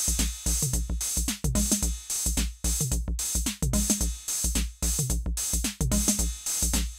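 Roland TR-06 Drumatix drum machine playing a fast looped pattern: kick drum and sharp hi-hat clicks, with pitched notes stepping up and down beneath them.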